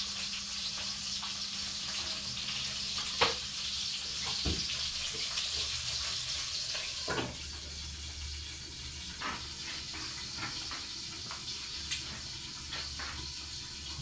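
Oil sizzling steadily in a frying pan on a gas stove, with a few light clicks and knocks of utensils, the sharpest about three seconds in.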